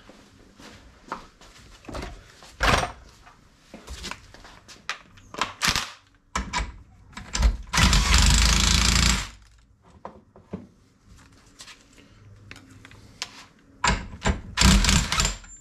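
An impact wrench (nut gun) hammers in one burst of about a second and a half, about eight seconds in, running down the nut on a classic Mini front swivel to seat its bottom locking plate flat. Scattered knocks and clicks of the socket and parts being handled come before and after it.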